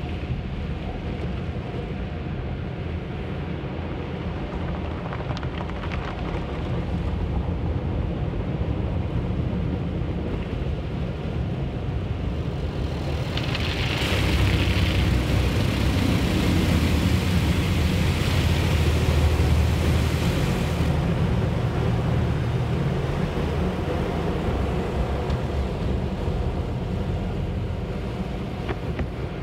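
Automatic car wash heard from inside the car: a steady low rumble of the wash machinery with water and foam washing over the windshield and roof. About halfway through, a louder rushing hiss swells for several seconds as the wash passes over the glass, then eases back.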